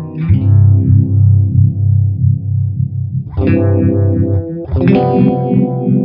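Electric guitar chords strummed through a Mattoverse Just A Phase phaser pedal, the phasing sweeping up and down several times a second. New chords are struck about three seconds in and again a second and a half later.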